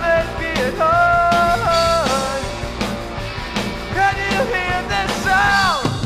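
Late-1980s indie rock band recording: drums and bass under a lead line of long held notes that bend down in pitch, ending in a long falling slide near the end.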